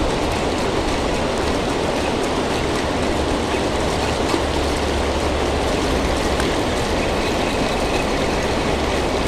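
Steady rush of water pouring off a dam into the river, an even roar with no breaks.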